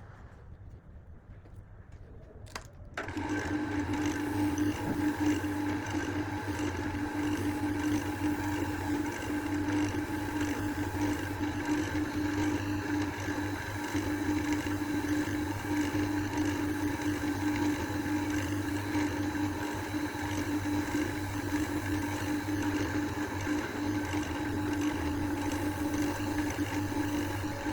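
Electric motor of a wood lathe starting about three seconds in and then running steadily at speed, a constant hum with a higher whine above it.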